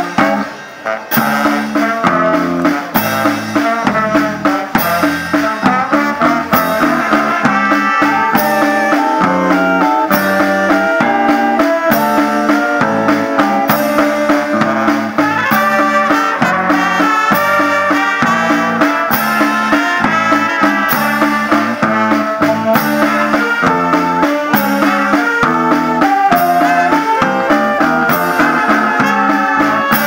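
A brass band of saxophones, trumpets and trombone playing a tune over a steady beat on snare and bass drum, with electric guitar, with a brief break about a second in.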